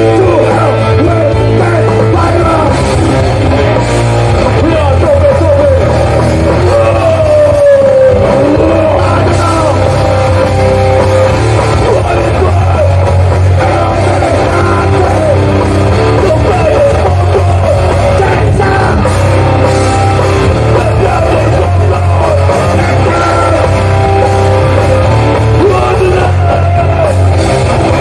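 Hardcore punk band playing live and loud: distorted electric guitars, bass and drum kit, with yelled vocals over the top.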